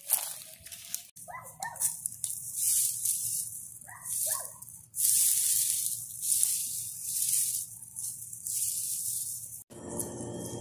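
Leaves and shrub branches rustling as they are pushed through and brushed against. A dog barks twice in quick succession about a second in, and again about four seconds in. Near the end the sound cuts abruptly to a steady hum.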